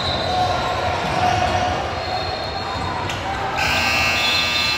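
Basketball bouncing on a gym floor amid court noise. About three and a half seconds in, a steady scoreboard buzzer starts suddenly and keeps sounding.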